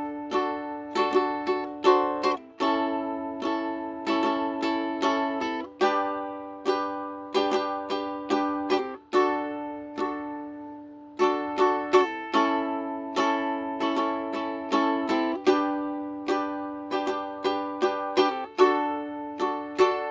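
Solo ukulele playing an instrumental introduction, plucked notes and chords each ringing out and fading, in a slow rhythm with brief pauses between phrases.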